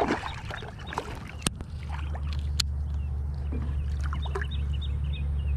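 A small bass being unhooked and let go over the side of a kayak: two sharp clicks from handling the rod and reel, then light splashing about four seconds in as the fish goes back into the water, over a steady low rumble that starts about two seconds in.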